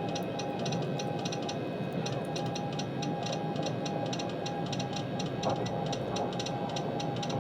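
Morse code: a single-pitch beep keyed on and off in long and short stretches, over a steady hiss and a fast, even ticking.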